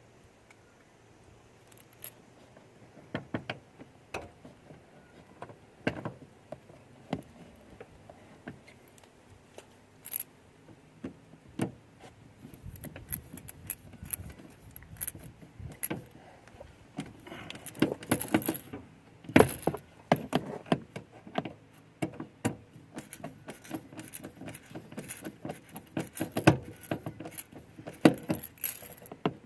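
Irregular metallic clicks, taps and jingling rattles of small metal parts and hand tools being handled, sparse at first and busier in the second half, with a burst of louder jingling in the middle.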